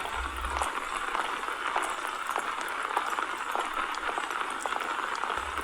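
Steady rain, a constant hiss with scattered faint drop ticks.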